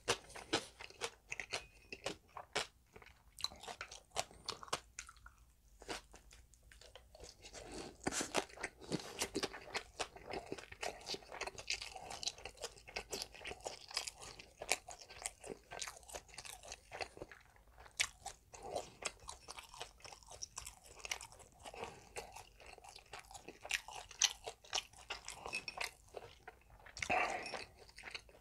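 Crunching and chewing of a crisp breaded, deep-fried pork cutlet (tonkatsu): an irregular run of sharp crunches, with a quieter spell about five seconds in.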